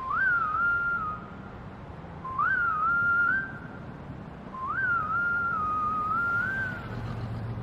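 Whistling: three short whistled phrases. Each jumps up, then holds and wavers around one pitch, and the third phrase is the longest.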